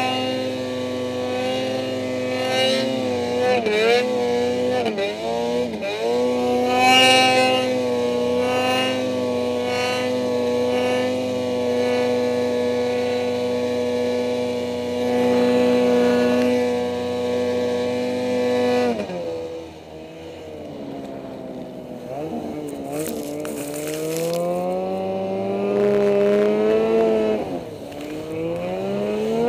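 Ski-Doo snowmobile engine held at high, steady revs while ploughing through deep powder, with a few brief dips in the throttle. About two-thirds of the way through the revs drop off sharply, then waver and climb back up near the end.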